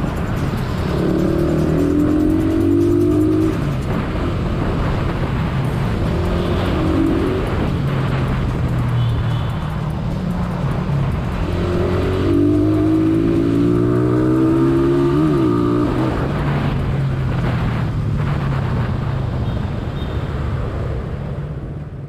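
Suzuki Raider 150's single-cylinder four-stroke engine accelerating through traffic, its pitch rising through the gears in several pulls and dropping back between them, with a longer stepped climb through shifts about twelve seconds in. Wind and road noise run steadily underneath.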